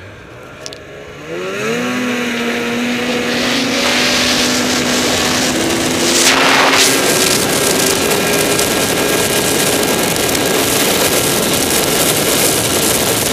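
Snowmobile engine accelerating hard about a second in, its pitch rising and then holding steady at speed. Wind rushes over the helmet camera's microphone throughout, with a louder burst of rushing noise about six seconds in.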